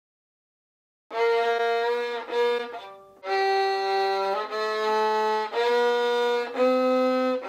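Violin playing a slow melody of held bowed notes, each about a second long, starting about a second in.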